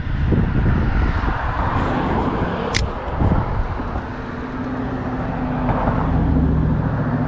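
Road traffic on the bridge: a steady rush of passing vehicles with low rumble. From about halfway, one vehicle's steady engine hum comes through, and there is a single short sharp click near the middle.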